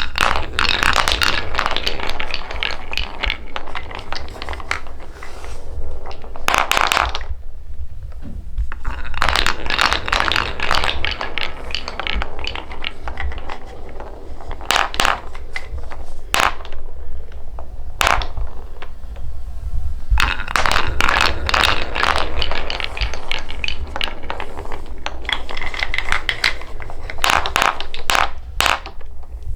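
Balls rolling and clattering down a wooden marble run track: long runs of rapid clicks and rattles broken by short pauses and a few single knocks, over a steady low rumble.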